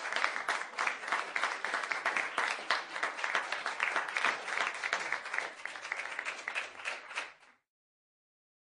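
Applause from a crowd, many hands clapping densely, dying away and stopping about seven and a half seconds in.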